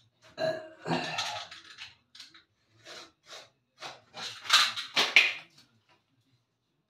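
Irregular knocks and clatters of hard objects being handled, in two clusters: one about half a second in and a louder one around four and a half to five and a half seconds in.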